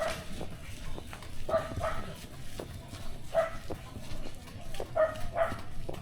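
A dog barking, short barks often in pairs, repeating every second or two.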